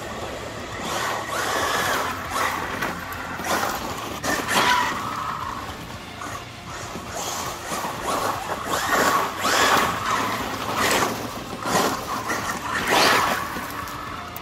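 Losi Super Baja Rey 2.0 RC truck's brushless electric motor on 8S LiPo power, whining up and down in repeated bursts of acceleration, with gravel crunching and spraying under its tyres. About five surges, the loudest about two-thirds of the way through and near the end.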